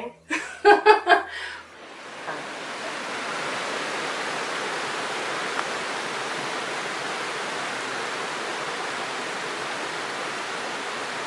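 Small stream tumbling over rocks in a little cascade: a steady rush of water that comes in about two seconds in and holds level.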